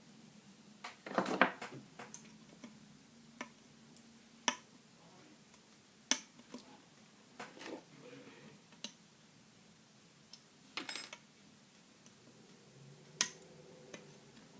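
Scattered clicks and light metallic knocks from a Zippo lighter and its parts being handled during refilling with lighter fluid, about fifteen separate taps. A quick rattle of clicks comes about eleven seconds in.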